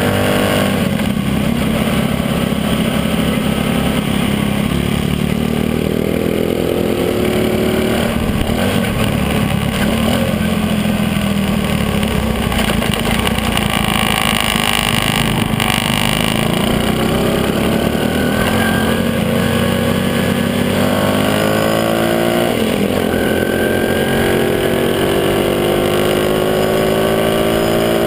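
Small motorcycle engine running on the road, its pitch climbing several times and dropping back between, as with gear changes, over steady wind and tyre noise.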